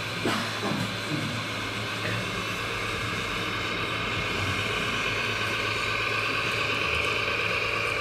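Radio-controlled three-axle model dump truck driving, its electric drive giving a steady whine over a constant hum and hiss. The whine grows a little stronger about halfway through. A few light knocks come in the first second.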